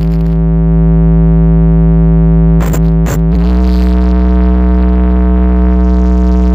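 Synthesizer music played loud through big stacked sound-system speakers: a long held synth chord over heavy bass, with two sharp hits about three seconds in.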